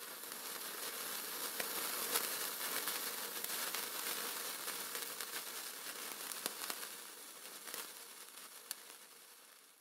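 Handheld sparklers hissing and crackling: a steady sizzle with scattered sharp crackles, fading out over the last few seconds.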